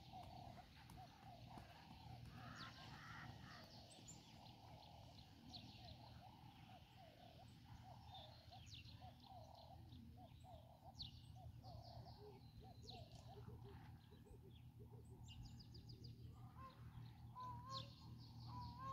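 Near silence: faint outdoor background with scattered bird chirps.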